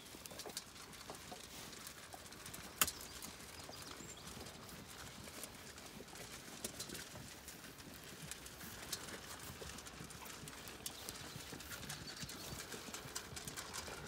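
Zwartbles sheep and lambs eating feed at troughs: a steady run of small crunching clicks from many mouths at once, with one sharper knock about three seconds in.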